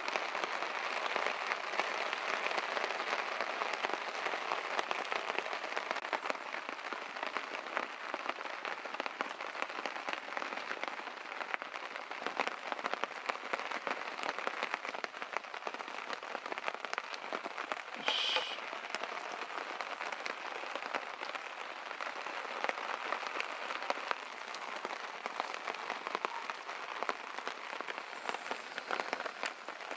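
Sleet mixed with rain falling steadily, a dense hiss of many small impacts.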